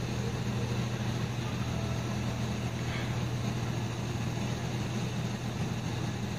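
Steady low machine hum with a constant hiss over it, unchanging throughout.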